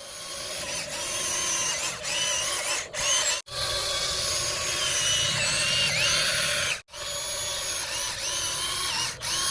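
Small electric motors and plastic gearboxes of a toy RC excavator whining as they run, the pitch shifting up and down. It cuts off sharply twice and starts straight back up.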